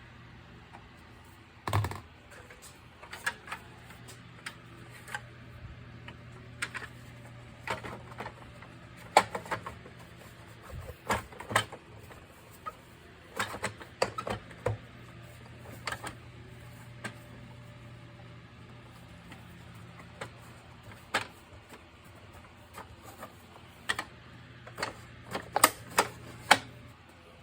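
Irregular clicks and knocks at uneven spacing, as of parts of an AEG-Electrolux CycloneXL bagless vacuum cleaner being handled and fitted together, over a faint steady low hum. The clicks cluster most densely near the end.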